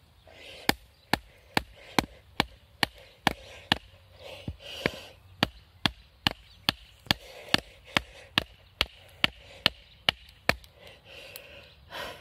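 Batoning: a wooden baton repeatedly strikes an Albainox fixed-blade knife lodged in the top of a short upright log, driving it down into the wood. About twenty sharp, evenly spaced knocks come a little more than two a second and stop about a second and a half before the end.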